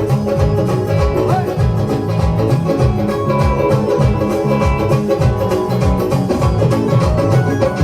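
Live band playing an instrumental passage of a Punjabi song: a plucked-string melody over a steady drum and bass beat.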